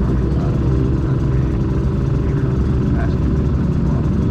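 Aprilia RS250 two-stroke V-twin race bike running steadily, its engine note buried under a heavy low rumble.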